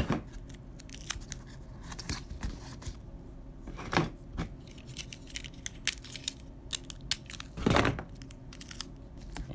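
Clear adhesive tape being pulled off its roll, torn into strips and pressed onto corrugated cardboard: short crackling rips and light taps, with louder, longer pulls at the start, about four seconds in and the longest near the end.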